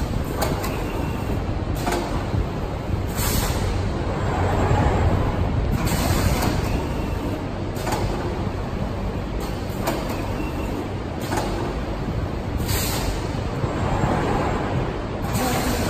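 Bihong hybrid digital T-shirt printing machine running: a steady low machine hum, broken every second or few by short hisses of compressed air from its pneumatics as the print head cycles.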